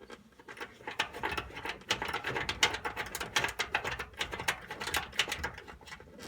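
A screw being turned in by hand with a screwdriver to hold a replacement dryer thermal fuse in place: a rapid, uneven run of metal clicks and scrapes that starts about a second in.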